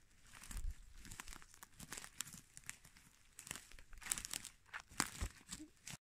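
Dry pine needles and twigs on the forest floor crackling and rustling underfoot in irregular, rapid crackles, with a couple of low thumps of footfalls.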